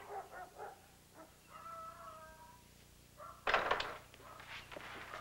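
A telephone handset hung up onto its cradle, a short loud clatter about three and a half seconds in. Faint animal calls sound beforehand, one of them held for about a second.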